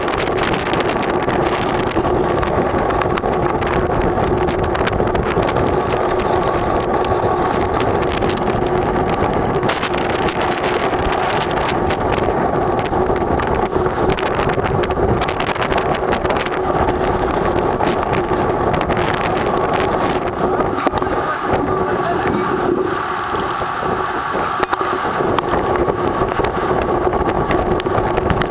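Tropical storm wind gusting hard and buffeting the microphone in a continuous loud rush, with a steady hum underneath.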